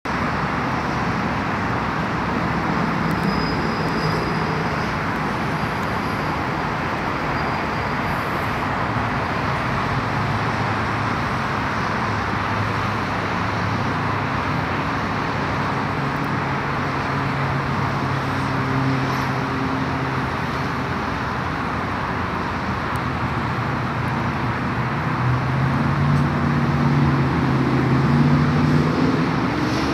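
Steady road traffic noise: a constant rush of passing vehicles with a low engine hum that shifts in pitch, growing a little louder near the end.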